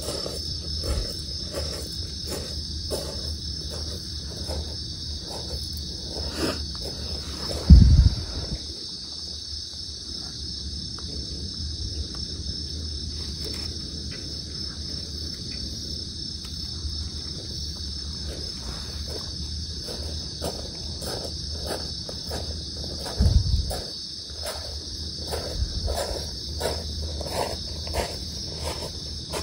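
Night insects chirring steadily in a high, continuous band. Two short low thumps stand out, about a quarter of the way in and again about three quarters of the way in.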